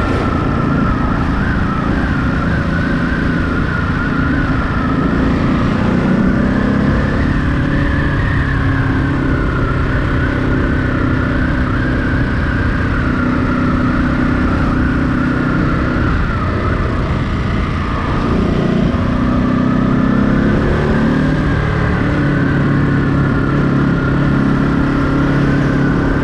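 Ducati Monster 937's 937 cc L-twin engine running at low to moderate revs, its pitch shifting as the throttle is rolled on and off, with road and wind noise. A siren wails somewhere behind it, slowly rising and falling.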